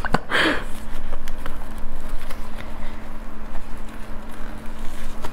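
Plastic-gloved hands prying apart a durian's spiky husk and pulling out a pod of flesh: scattered crackling clicks and glove rustling, with a louder rustle about half a second in, over a steady low hum.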